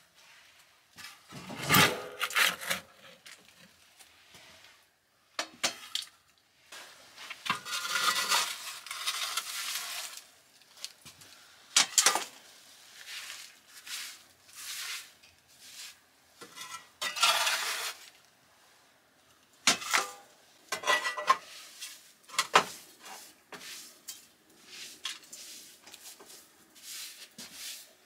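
Straw hand broom sweeping ash and debris out of a brick stove's oven: bursts of scratchy brushing strokes a second or two long, mixed with sharp knocks and clatters as the broom and bits of debris strike the brick.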